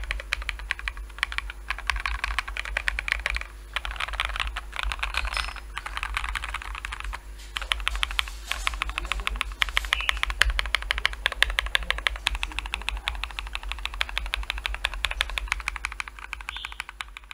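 Fast, continuous typing on a NOOK75 75% gasket-mount aluminium mechanical keyboard fitted with BSUN Bubble switches on an aluminium plate, case and plate foam, and MW Retro Light keycaps: a dense stream of keystroke clicks with short pauses a few seconds in.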